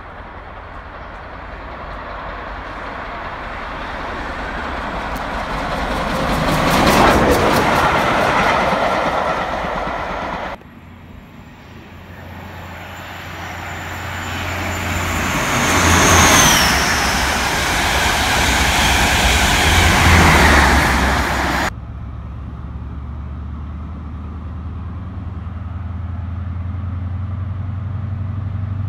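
Two trains passing at speed, in two separate takes. Each builds to a loud rush of wheels on rails as it goes by, the first with rapid clicks at its loudest. After the second pass a steady low hum remains.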